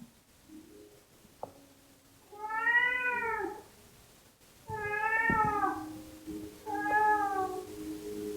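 Domestic cat meowing three times in a strange-sounding voice, each meow rising and then falling in pitch, the second and third close together.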